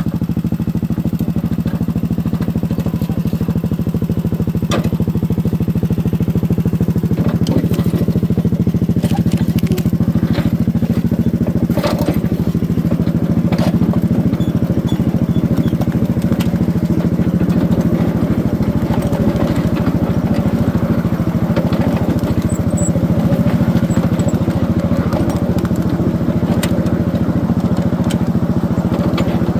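Small engine of a ride-on backyard railroad locomotive running steadily as the train rolls along the track, with a few sharp clicks from the cars on the rails.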